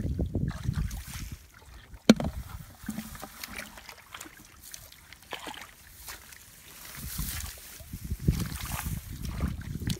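Hands sloshing and splashing through shallow muddy water while groping for fish, with a low gusty rumble. A single sharp knock about two seconds in is the loudest moment.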